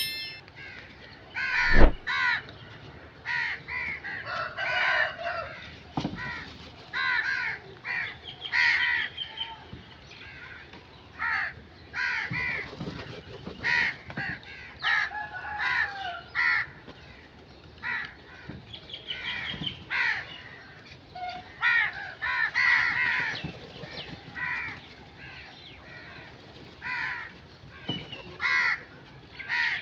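Several crows cawing over and over, short harsh calls that often overlap, with a sharp thump about two seconds in.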